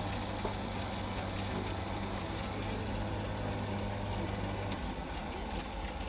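Automatic coffee machine's pump humming steadily as it dispenses into a cup, then cutting off with a click near the end.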